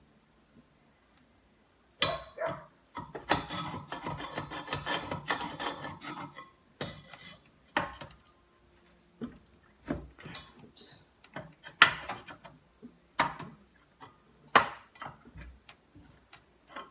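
Metal parts of a Briggs & Stratton engine being worked loose by hand: after a short quiet, a few seconds of scraping and rattling, then a string of separate sharp knocks about a second or so apart.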